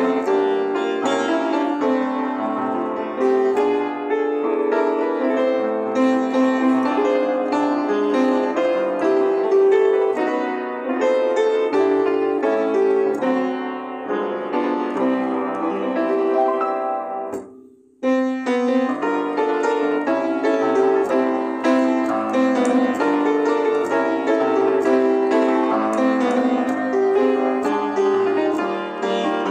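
Upright acoustic piano played solo in a jazz style, chords and melody together. About two-thirds of the way through, the playing fades almost to nothing and then comes back in abruptly.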